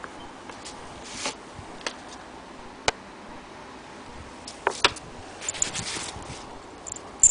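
Irregular handling noises: a few separate sharp clicks, two close together a little past the middle, with short rustles between them and a louder click at the end. There is no steady running rhythm.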